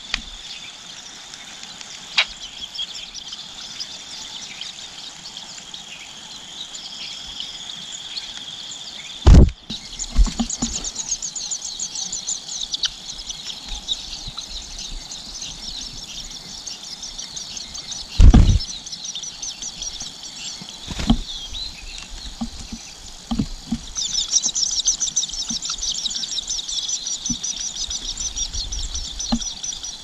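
A steady high-pitched insect-like drone with fast, high chirping over it; the chirping grows louder about 24 seconds in. Loud low thumps break in about 9, 18 and 21 seconds in.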